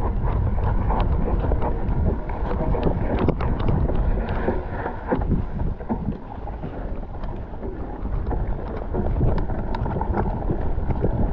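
Mountain bike ridden over a rough, muddy singletrack: wind rumbling on the action camera's microphone, with the bike rattling and clattering over the bumps.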